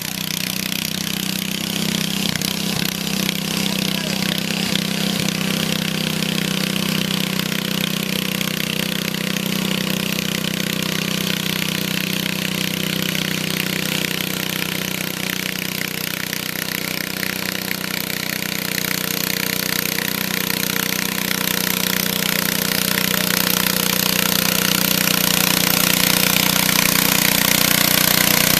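Pulling tractor's engine running hard at a steady pitch, rough and loud, growing gradually louder toward the end.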